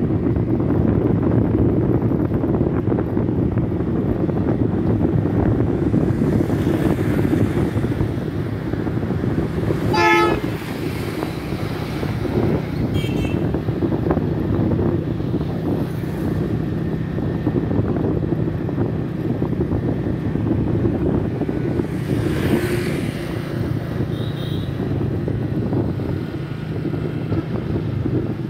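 Motorbike engine running steadily with road noise while riding. A vehicle horn sounds briefly about ten seconds in.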